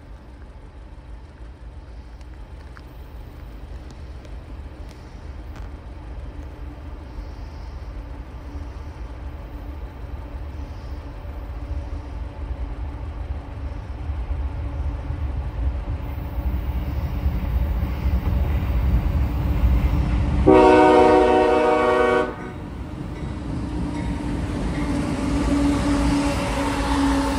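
CSX freight train's diesel locomotive approaching, its low rumble growing steadily louder. About twenty seconds in it sounds one horn blast of about two seconds, a chord of several tones. The locomotive then passes close, with engine drone and wheel noise.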